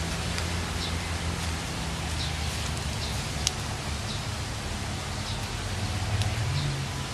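Outdoor ambience: a steady low rumble and hiss, with a faint short high chirp recurring about once a second and a single sharp click about halfway through.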